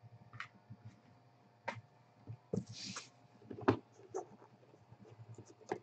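Aluminium card briefcase being handled and opened: a series of sharp metallic clicks and knocks from its latches and lid, the loudest about two thirds of the way in, with a short scraping rustle around the middle.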